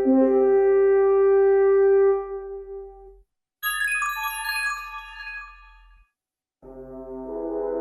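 iPhone X ringtones and alert tones played in turn. A held horn-like chord fades out, then a quick bright chiming run of bell-like notes sounds about three and a half seconds in and dies away. Near the end a new tone swells in.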